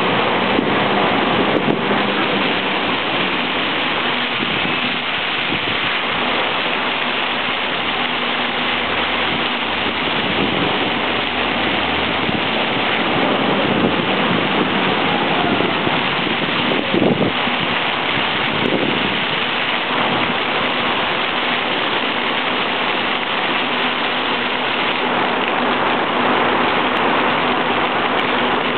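Fountain water falling and splashing in a steady, continuous rush.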